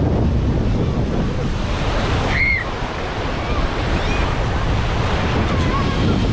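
Sea waves washing onto a sandy beach, with wind buffeting the microphone. A brief high-pitched cry rises and falls about two and a half seconds in, and a few faint short calls follow later.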